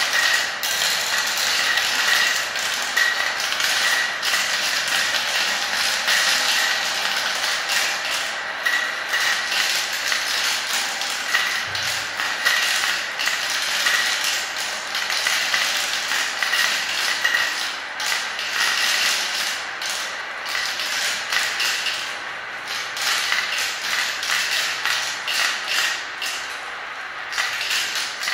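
Small plastic balls rolling through a plastic marble run, a dense continuous clatter of clicks and rattles as many balls spin around funnel bowls and drop through the tubes.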